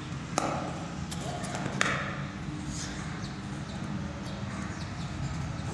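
Cricket bat striking a ball: a sharp crack about two seconds in, with a softer knock just before it, over a steady low hum.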